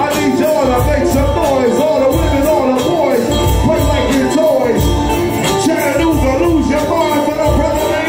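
Live bluegrass–hip-hop band music: a fiddle plays a sliding, bending lead line over acoustic guitar and a steady low beat.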